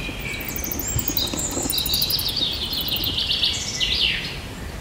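Fruit bats squeaking: a run of rapid, high-pitched chirps, then a few quick squeaks that sweep downward in pitch near the end.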